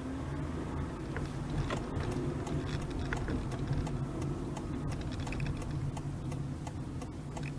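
Inside the cabin of a Honda Freed Hybrid: a steady low rumble from the moving car, with scattered light clicks and ticks at irregular intervals.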